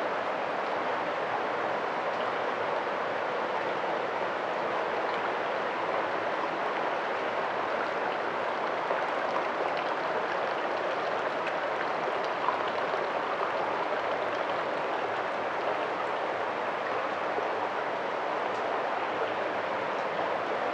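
Hot spring water running steadily from a rock spout into a stone bath and splashing onto the pool's surface, a constant even rush of water.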